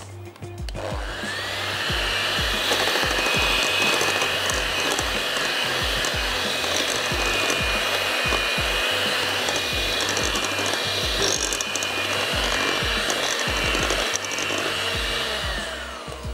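Electric mixer beating flour into lemon cookie dough. Its motor whine rises as it starts about a second in, runs steadily, and winds down near the end.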